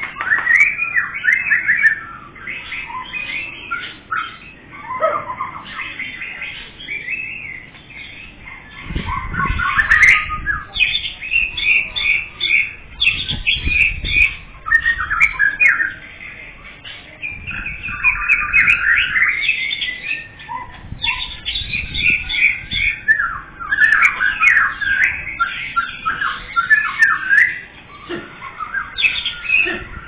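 Caged songbirds chirping and singing in quick, high repeated phrases, with brief lulls between bouts.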